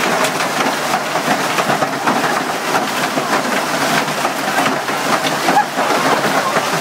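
Hailstorm: a steady, dense pelting of hailstones, with many sharp little impacts over a continuous rush of falling ice.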